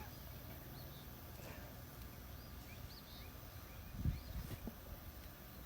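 Quiet background with a few faint, short, high chirps from a bird, and a few soft low knocks about four seconds in.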